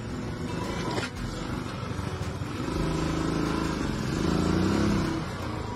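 Royal Enfield Bullet's single-cylinder engine running with a quick, even beat, getting louder for a couple of seconds about halfway through as the bike moves off.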